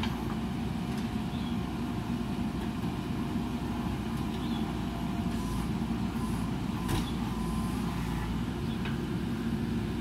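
JCB 3DX backhoe loader's diesel engine running steadily while the backhoe arm digs. A sharp knock comes about seven seconds in.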